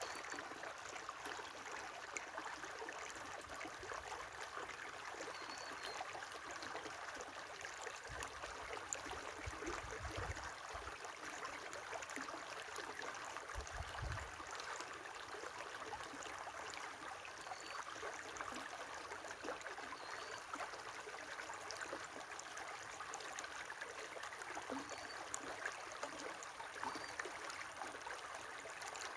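A river running steadily, with a few faint, short bird chirps scattered over it.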